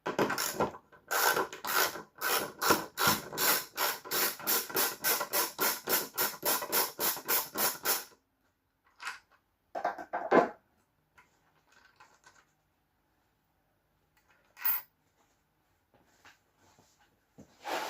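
Rapid, even rasping strokes from a hand tool at work, about four a second for some eight seconds. A few separate knocks follow.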